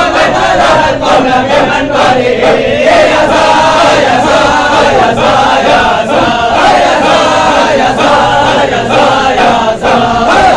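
A group of men chanting a devotional Arabic halara dhikr loudly in unison, led by a man conducting with his arms. The singing runs without a break.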